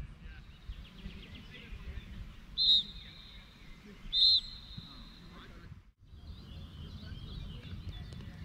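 Referee's pea whistle blown twice in short blasts, about a second and a half apart, over low wind and field noise.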